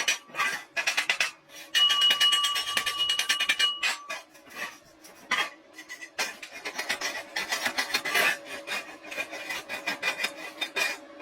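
Rapid rasping strokes of a tool working metal, in uneven runs with short pauses.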